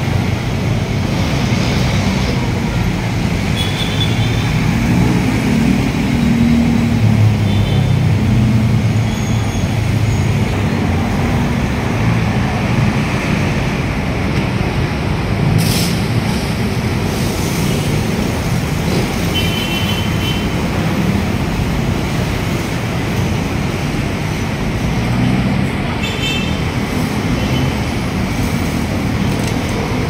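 Steady traffic on a busy city road: motorcycles, cars and trucks passing with a continuous engine hum and tyre noise, and a few short high chirps now and then.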